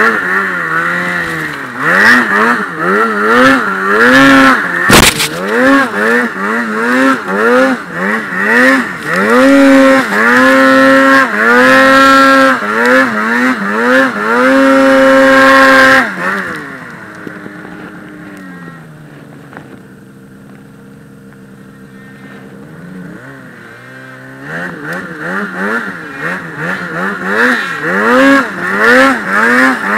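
Polaris Axys Pro RMK snowmobile's two-stroke engine revving up and down in quick throttle blips while pushing through deep snow, held high for a few seconds, then dropping to idle about halfway through before revving again near the end. A sharp knock about five seconds in.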